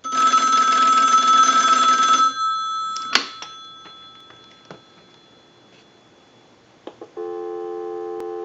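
Single-slot payphone's ringer bell ringing for about two seconds on a ring cycle, then fading, with a sharp click just after. A few lighter clicks follow, and about seven seconds in a steady dial tone comes on.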